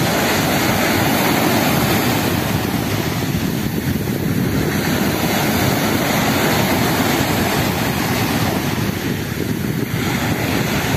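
Sea surf: small waves breaking and washing up the beach in a steady rush.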